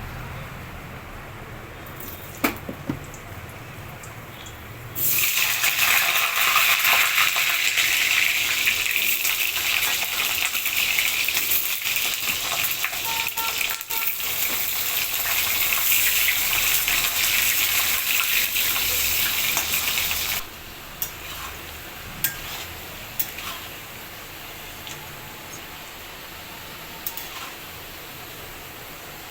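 Kitchen tap running hard for about fifteen seconds, turned on and off abruptly, with a few light clicks of utensils or dishes before and after.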